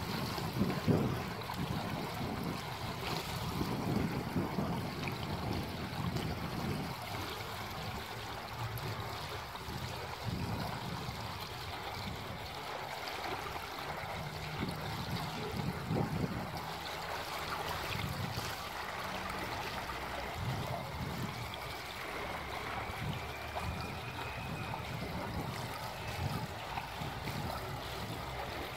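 Fountain water: a small jet bubbling up in a shallow circular pool, giving a steady trickling splash, with gusts of wind rumbling on the microphone now and then.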